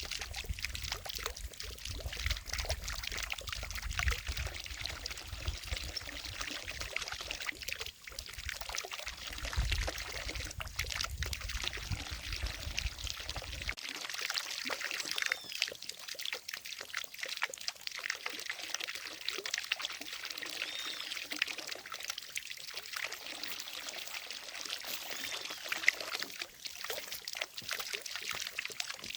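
Water falling from a fountain, splashing and trickling steadily into a lake. A low rumble underneath cuts off suddenly about halfway through.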